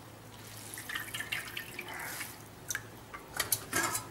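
Water dripping and trickling as a handful of soaked, steamed finger millet (ragi) noodles is squeezed out by hand over a steel strainer, with a few sharper drips near the end.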